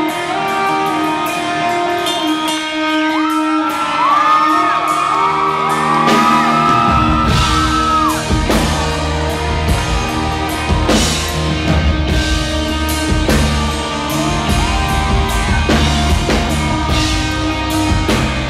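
Live rock band in a large hall, heard from the audience. A sparse intro of held, bending high notes with no bass gives way about seven seconds in to the full band, with bass and drums entering and playing on.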